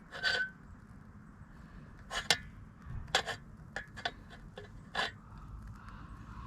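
Handling of camping coffee gear: a handful of short, sharp knocks and clinks at irregular intervals, over a faint steady hiss.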